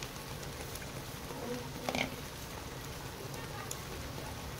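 Mustard oil with whole spices and paste sizzling steadily in a wok, with one short louder sound about two seconds in.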